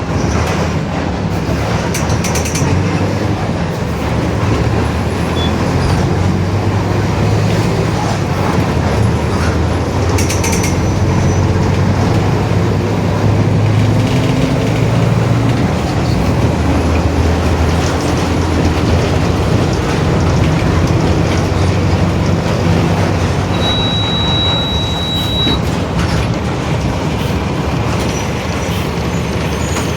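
Mercedes-Benz OF-1721 BlueTec 5 city bus under way, its four-cylinder diesel running with the engine note rising and falling, and the differential growling.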